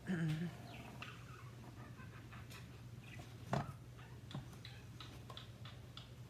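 A pet bird chirping and chattering faintly, with light clicks and taps of small metal parts handled on a desk, the loudest a sharp tap about three and a half seconds in. A steady low hum runs underneath.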